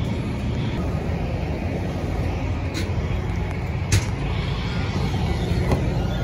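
A vehicle engine running steadily, with a few short knocks, the clearest about four seconds in.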